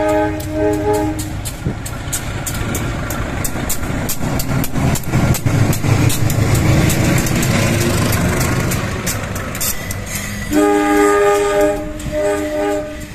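A CC 201 diesel-electric locomotive (General Electric U18C) sounds its chime horn at the start. Its engine rumble builds as it passes close. It sounds the horn again near the end: one long blast, then two short ones.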